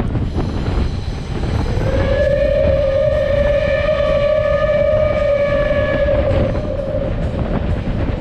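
Steam locomotive whistle of Reading & Northern 2102 blowing one long blast of about six seconds. It starts about a second and a half in, sliding up briefly to a steady note. Under it runs the steady rumble of the passenger cars rolling on the rails.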